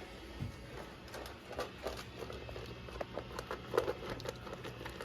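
A dog eating from a bowl: irregular crunches and clicks of chewing and of the food being picked up, over a faint steady low hum.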